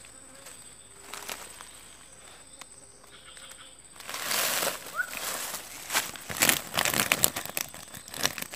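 From about four seconds in, a loud rustling, crackling clatter: a wire-mesh fish trap packed with live fish shifting and rattling on dry leaf litter, the fish flapping against the mesh. The first few seconds are fairly quiet, with only a few faint clicks.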